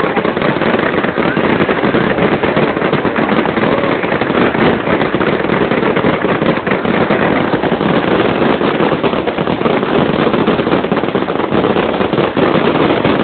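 Many firecrackers and fireworks going off at once: a loud, dense, unbroken crackle of rapid bangs.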